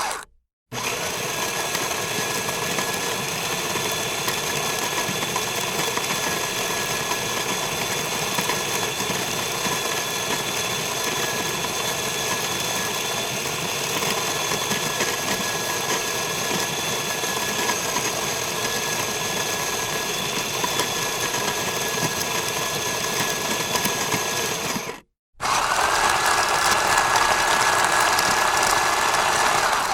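Steady mechanical whirring and clatter from coffee shop machinery, with a constant high whine over it. It drops out twice, about half a second in and again about 25 seconds in, and the last few seconds are brighter.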